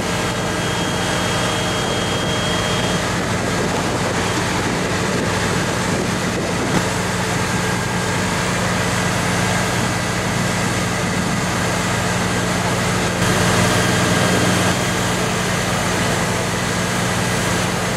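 Heavy diesel machinery running steadily: a constant low engine drone with a broad noise layer, getting louder for a moment about 13 seconds in. The drone comes from the crane truck driving its hydraulic rod-handling crane and from the large drill rig beside it.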